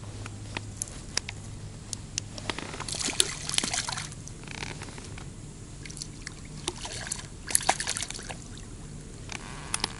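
Water splashing and sloshing in two short bouts, about three and seven seconds in, as a hooked crucian carp struggles at the surface, with scattered sharp clicks.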